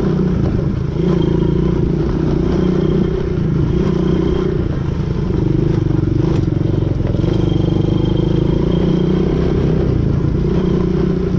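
Quad bike (ATV) engine running steadily under way, its pitch rising and falling a little with the throttle, with a few knocks and rattles from riding over rough ground.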